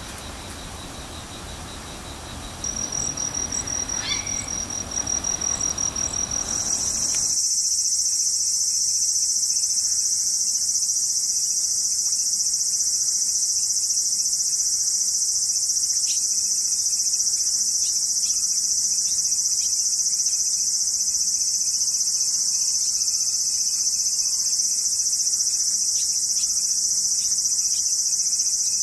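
Insects calling: a single high, pulsing trill comes in a few seconds in, then a loud, steady, high-pitched insect chorus takes over about six to seven seconds in and holds without a break.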